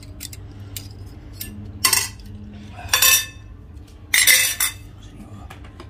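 Metal spoon and plates clinking and clattering as dishes are handled at a food spread, with three louder ringing clinks about two, three and four seconds in, over a low steady hum.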